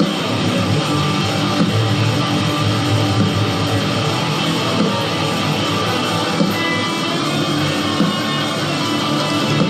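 Guitar improvising in B minor, played continuously without a pause, in a poor-quality recording.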